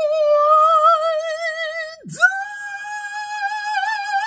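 A man singing long, high held notes with a wide vibrato, a dramatic mock lament: one sustained note, a quick breath about two seconds in, then a second, higher note held on.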